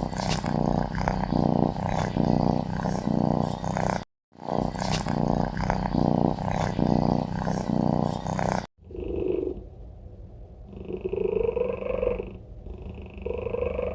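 Domestic cat purring: a loud rhythmic rumble, the same stretch heard twice with a brief break near four seconds. After a cut near nine seconds comes a different, quieter sound made of several long drawn-out notes.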